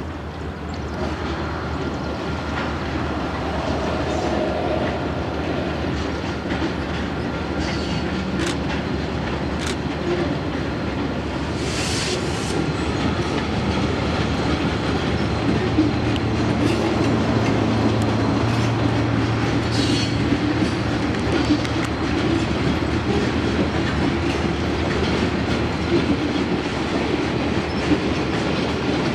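Freight train rolling past, its wheels clacking over the rail joints, with a few brief high wheel squeals.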